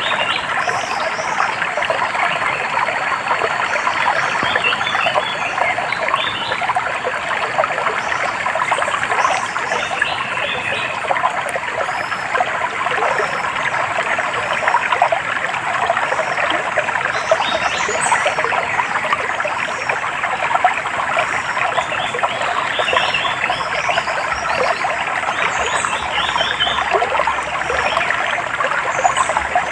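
A stream trickling and babbling steadily, with short bursts of bird chirps scattered through it.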